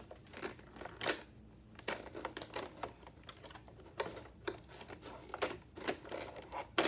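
Hands working a model train out of its fitted packaging: irregular sharp clicks, taps and scrapes, the sharpest near the end.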